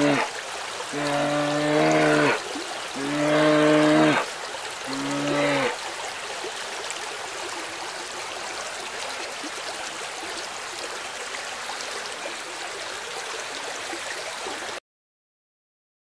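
Brown bears wrestling in water, giving four drawn-out, low moaning calls in the first six seconds, each about a second long. Splashing and running water go on steadily after the calls, until the sound cuts off near the end.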